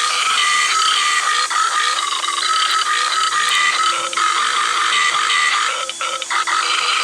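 Toucan making a long rattling, belching croak that runs almost without a break, with a few short gaps late on.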